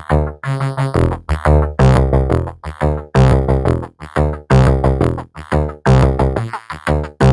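Synthesizer music: a quick run of short, separate notes with many overtones over a deep bass, each note starting sharply and dying away.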